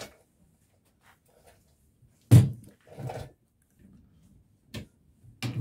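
Hand tools clunking on metal while the clutch centre nut is done up tight on a Triumph T140 engine. There are a few sharp knocks, the loudest about two and a half seconds in, and a quick cluster near the end.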